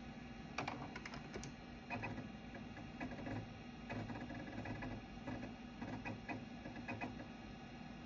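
Old 20 MB SCSI hard drive in a Macintosh SE FDHD seeking while reading data: a quick scatter of sharp clicks about a second in, then clusters of clicking and soft thudding head chatter every half second or so, over a steady low hum.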